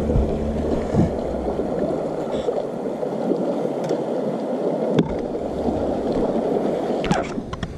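Small waves lapping and gurgling against the hull of a bass boat, a steady watery wash with a few light knocks.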